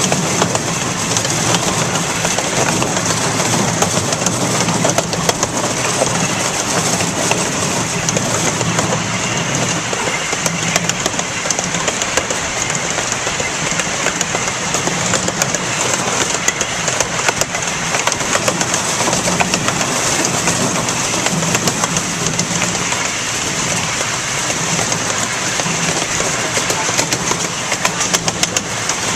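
Amusement-park train running along the track, heard from an open passenger car: a steady rolling rumble with many small clicks and rattles from the wheels and cars.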